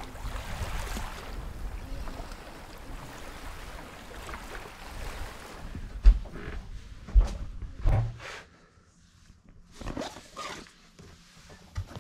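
Outdoor noise with a low rumble, as of wind on the microphone. In the second half it quietens and gives way to a few scattered knocks and thumps.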